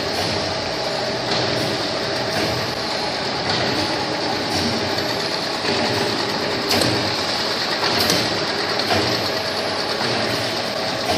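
Automatic packaging line running: a steady mechanical whir of conveyors and a can-labeling machine, with a soft knock about once a second as the machine cycles.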